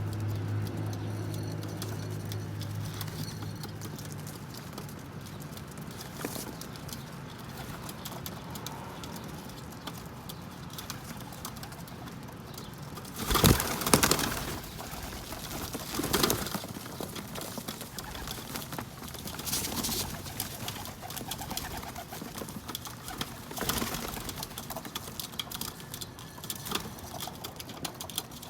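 Feral pigeons cooing, a low steady coo in the first few seconds. Several short, loud noisy bursts break in around the middle, the loudest halfway through and three smaller ones spaced a few seconds apart after it.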